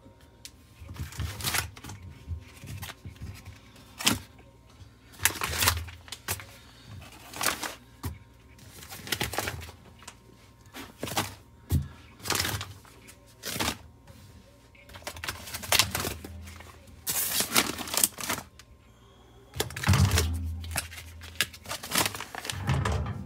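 Plastic-bagged whole chickens being handled in a freezer: irregular crinkles and knocks of the bags, with a few dull thumps as the birds are moved.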